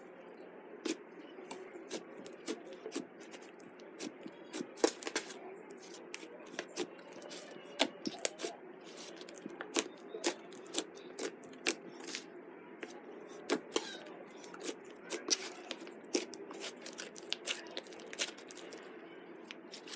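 Purple butter slime being pressed, poked and squeezed by hand, giving soft irregular clicks and pops, at times several a second, over a steady low hiss.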